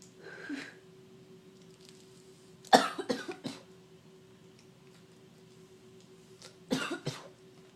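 A person coughing in two short fits of three or four coughs each, the first fit the louder, from breathing in crushed Smarties candy powder.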